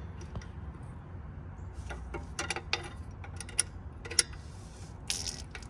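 Scattered small metallic clicks and ticks of a wrench on a rear brake wheel cylinder's bleeder screw while the brakes are being bled, with a brief hiss near the end.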